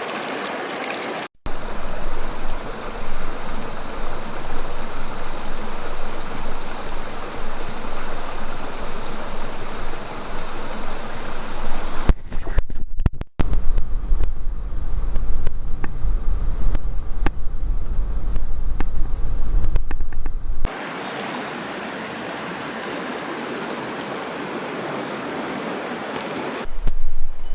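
River water rushing steadily. Abrupt changes in tone mark separate clips. In the middle stretch a deep rumble and scattered knocks sit under the water.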